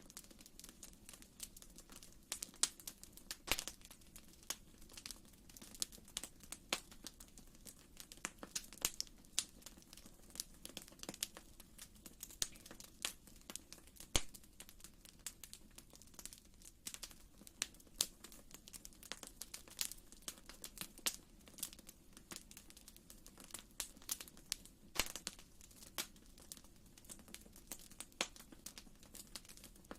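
Wood fire in a fireplace crackling, with many irregular pops and snaps over a soft steady hiss.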